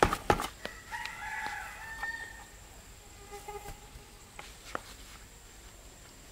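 A rooster crowing once, about a second and a half long, starting about a second in, with a fainter call soon after. At the start a plastic scoop scrapes and knocks in a bucket of dry cement mix, and two knocks come near the end.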